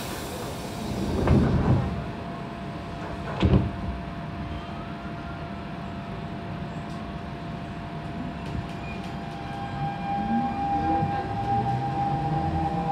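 Siemens C651 metro train's doors sliding shut with a hiss of air and a knock as they close, about three and a half seconds in. From about eight seconds the GTO-VVVF traction inverter and motors start to whine, rising in pitch as the train pulls away.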